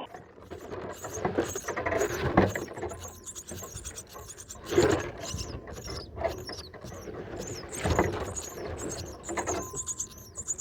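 Brahminy starlings making many short, high-pitched squeaky chirps, crowding together toward the end. Several louder rustles come in between.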